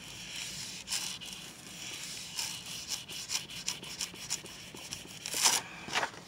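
Sheet of paper being peeled off a paint-coated gel printing plate and handled: a run of soft crackles and rustles as it comes away from the tacky paint, with a louder paper swish about five and a half seconds in.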